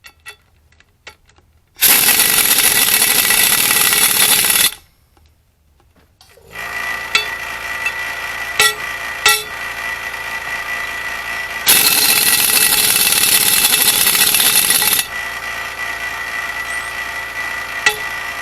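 Air impact wrench hammering in two loud bursts, drawing anti-seize-greased wheel studs into the axle flange. Between and after the bursts there is a steady ringing tone with scattered clicks, the ring the owner listens for as a stud lands fully home.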